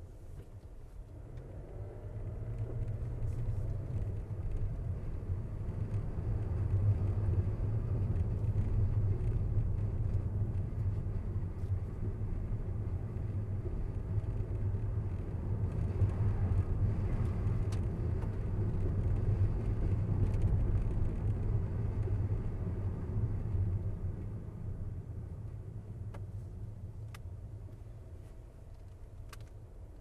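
Car driving on a road: a low, steady rumble of engine and tyres. It grows louder over the first few seconds, holds, and fades over the last several seconds, with a few faint ticks near the end.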